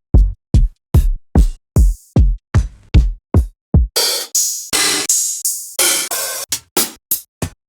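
Electronic drum one-shot samples auditioned one after another: about ten deep kick drums at an even pace, then a few longer noisy hits with hissing tails about four seconds in, then short bright hits near the end.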